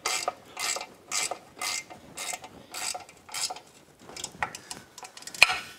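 Hand ratchet clicking in regular strokes, about three a second, as it runs a lower-unit bolt into an outboard's gearcase. After about four seconds the clicks turn lighter and quicker, with one sharper click near the end.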